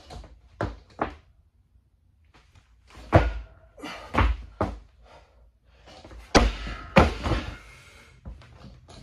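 Barbell loaded with rubber bumper plates lifted and then dropped: a series of sharp thuds and clanks. The loudest two, a little over half a second apart, are the bar hitting the floor and bouncing.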